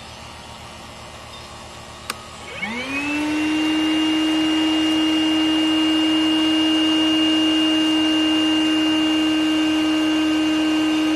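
Shop vac switched on with a click about two seconds in, its motor spinning up in a rising whine and then running at a steady pitch. It is pulling suction on a clogged condensate drain line through a drain-cleaning adapter.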